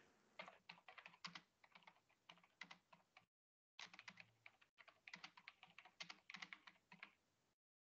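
Faint, rapid typing on a computer keyboard, heard through a video-call microphone. The sound cuts out briefly a little after three seconds in and again near the end.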